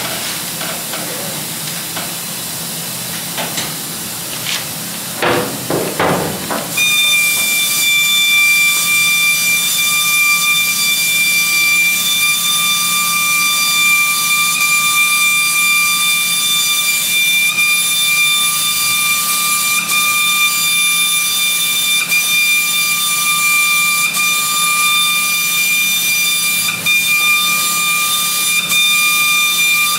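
Paint sprayer spraying: a loud, steady hiss with a high whistling tone starts about seven seconds in and holds, with a fainter hiss and a few brief sounds before it.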